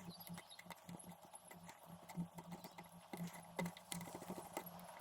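Thread tap being turned in a drilled hole in a metal casting: faint, irregular clicks and ticks as the tap cuts and is worked back and forth.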